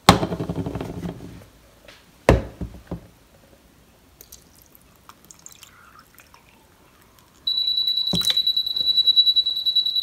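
Water poured from a plastic jug into the fill opening on top of a mini tabletop dishwasher, which runs quietly. It comes after a clatter and a knock near the start. From about three quarters of the way in, a steady high-pitched electronic tone sounds, with a knock just after it begins.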